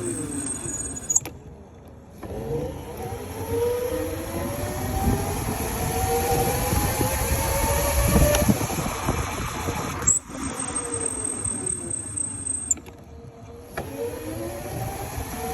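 Electric mini moto's motor whining and rising in pitch as it accelerates, with wind and road noise; it eases off briefly about a second in and again near the end, then pulls up again.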